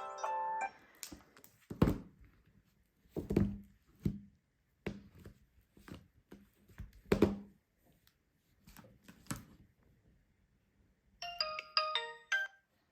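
A mobile phone ringtone melody cuts off just after the start, followed by a series of separate dull thumps and knocks. Near the end comes a short electronic jingle of several quick, high tones.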